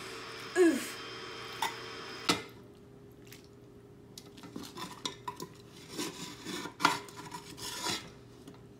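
Metal spoon scraping and knocking against the inside of a stainless steel stockpot while scooping out thick pasta: scattered clinks and scrapes, with a sharp clank about two seconds in and a busier run of knocks in the second half. A brief falling squeak comes near the start.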